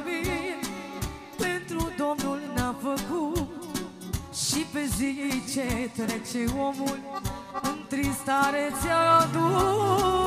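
Live band music: keyboards over a steady drum beat, with a melody that wavers with vibrato. Near the end, fuller sustained keyboard chords come in.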